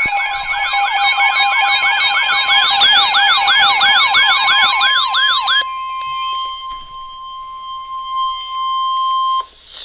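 Emergency Alert System alert tones for a weather warning. A fast, siren-like warble, about four sweeps a second over a steady tone, cuts off about five and a half seconds in. A single steady attention tone of about 1 kHz follows and stops abruptly near the end.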